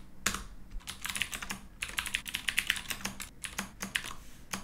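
Typing on a computer keyboard: quick, uneven runs of keystroke clicks, densest in the middle, with short pauses between runs.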